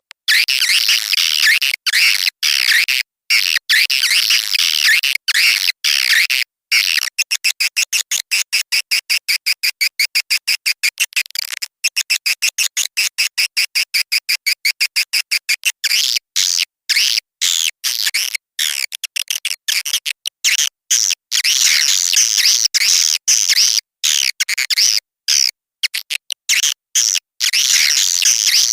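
Recorded swiftlet calls of the kind played to lure swiftlets into a nesting house: high chittering twitters in quick strings, broken by short silences. From about 7 to 16 seconds in they run as an even rapid series of chirps, about five a second.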